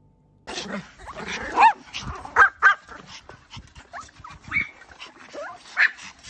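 Small Pomeranian dogs yapping: a run of short, high-pitched barks and yips that starts about half a second in, with the loudest barks near two and a half seconds and again near the end.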